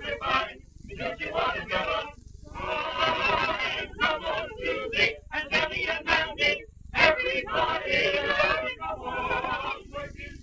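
A mixed choir of men and women singing in phrases broken by short pauses, on an early-1930s sound-film recording with a steady low noise floor underneath.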